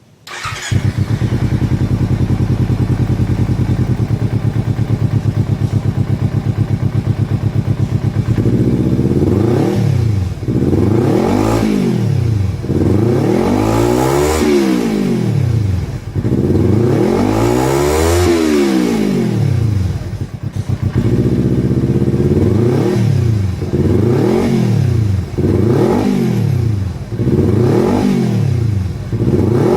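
Kawasaki Ninja 250R parallel-twin engine breathing through an Akrapovic carbon slip-on exhaust with the dB killer removed. It starts up about half a second in and idles steadily, then from about eight seconds is revved over and over, each blip rising and falling back to idle. The two highest revs come about halfway through.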